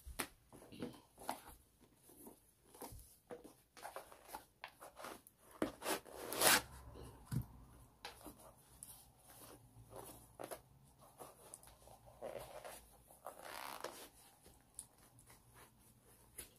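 Faint rustling and small scrapes of handling a sneaker: a sock pulled onto a foot, then the laces worked loose and drawn through the eyelets. Scattered light clicks throughout, with one louder rustle about six seconds in.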